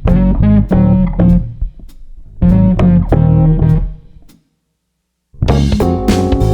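Background music: a plucked guitar and bass guitar riff in short phrases. It cuts to silence for about a second after about four seconds, then the music starts again.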